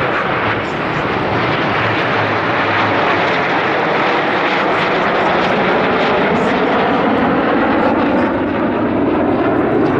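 Jet engines of a formation of Aermacchi MB-339 PAN jet trainers flying overhead: a loud, steady roar, with faint whine tones sliding in pitch in the second half.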